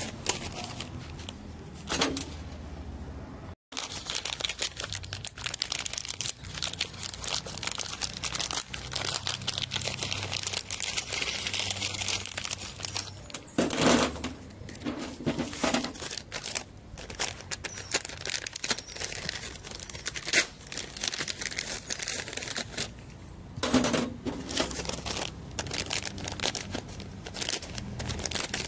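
Hands handling small metal parts of a rivet-and-spring repair kit: continuous rustling and clicking, with sharp knocks every few seconds.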